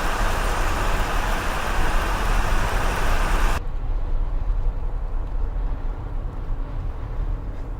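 Steady vehicle and road noise, a rushing haze with a strong low rumble and no clear engine note. About three and a half seconds in the high hiss cuts out suddenly, leaving a duller rumble.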